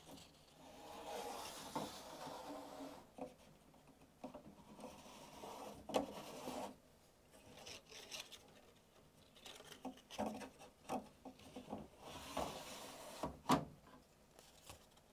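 Large circuit cards sliding into the card guides of a Quantel HAL Express card cage: stretches of edges rubbing and scraping, with a couple of sharp clicks as a card is pushed home.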